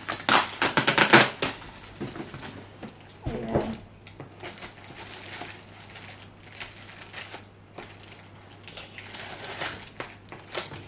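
Cardboard shipping box being opened by hand: a quick run of sharp clicks and scrapes in the first second or so, then softer rustling and scraping of cardboard and packing tape, with a few louder scrapes near the end.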